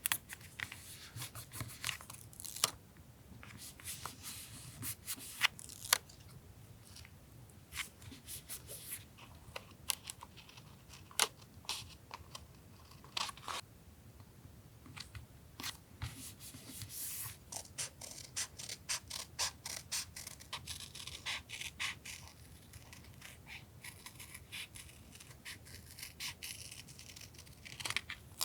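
Paper being handled for a journal collage: crisp rustles, light taps and scrapes in irregular short bursts, busier in the second half.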